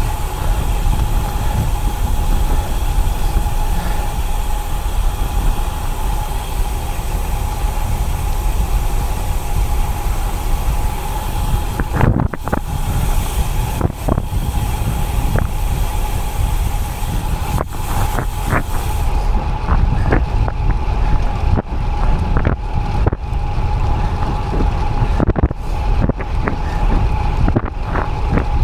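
Wind rushing over an action camera's microphone on a moving road bike: a loud, steady low rumble with a faint steady whine running through it. From about twelve seconds in, scattered sharp knocks cut through it, more of them in the second half.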